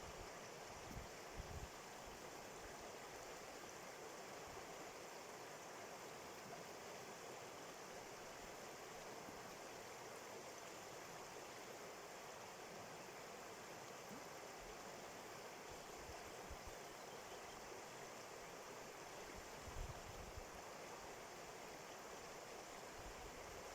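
Steady, faint rush of a flowing stream, with a few brief low thumps about a second in and near the end.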